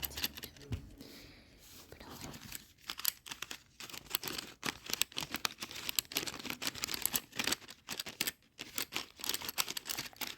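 Close-miked handling of painting materials: dense, irregular crinkling with many sharp clicks and taps, with soft whispering at times.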